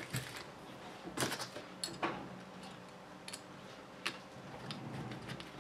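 Scattered sharp clicks and taps of small parts and a hand tool being handled while fitting thin lock nuts to mount RC crawler shocks, about half a dozen irregularly spaced clicks.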